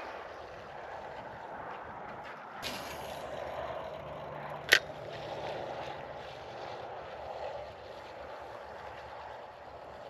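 Steady noise of traffic on a nearby highway, with a low hum for a few seconds near the middle. A brief hiss comes a little before the middle, and a single sharp click, the loudest sound, comes about halfway through.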